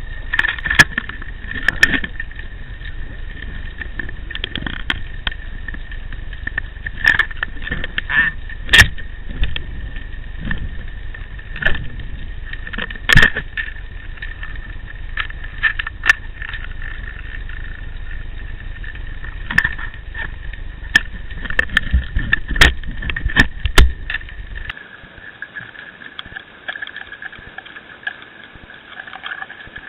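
Underwater sound picked up by a camera fixed to a squid jig: a low rush of water with sharp, irregular knocks and clicks, over a steady high tone. The low rush cuts out about 25 seconds in, leaving only the tone and a few faint clicks.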